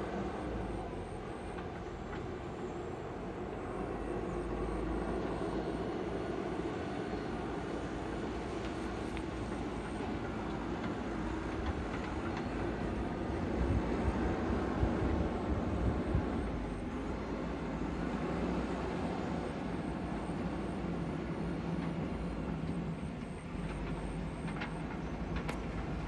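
JCB backhoe loader's diesel engine running steadily as the machine drives along a gravel riverbed track, heard at a distance.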